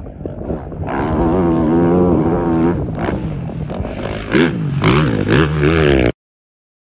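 Rally motorcycle engine revving hard as the bike rides past, its pitch rising and falling with the throttle and getting louder about a second in, then climbing steeply about four seconds in. The sound cuts off abruptly about six seconds in.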